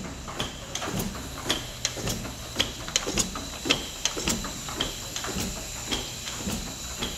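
A 125-horsepower 1860s stationary steam engine running quietly: soft, regular mechanical clicks about twice a second over a low steady hum.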